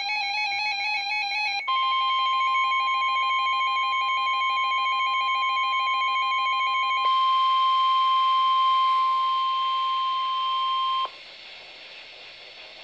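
Emergency alert tones: a warbling electronic tone, then the steady single-pitch weather-radio warning alarm tone at about 1,050 Hz. The alarm runs about nine seconds and cuts off abruptly about eleven seconds in, with the fainter warble beneath it stopping about seven seconds in. The alarm tone signals that a National Weather Service warning message follows.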